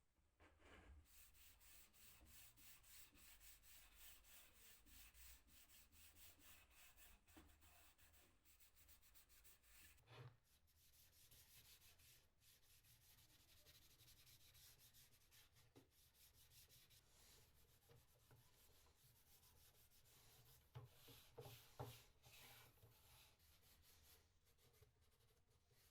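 Faint, rapid hand strokes rubbing over a wooden surface, going on steadily, with a few light knocks about three quarters of the way through.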